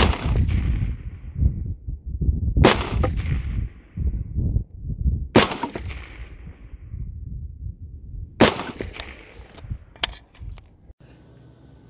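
Four shots from an AR-15 firing 55-grain Tula steel-case .223 ammunition, spaced about two and a half to three seconds apart, each trailing off in a short echo, with wind rumbling on the microphone between them. A few lighter clicks follow the last shot before the sound cuts to quiet room tone near the end.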